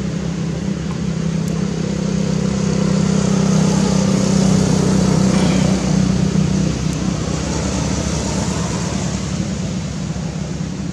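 An engine running steadily with a low hum, growing a little louder toward the middle and then easing.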